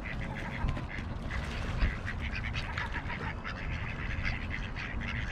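A flock of mallard ducks quacking, many short calls overlapping continuously. There is a low rumble underneath, and two brief thumps in the first two seconds.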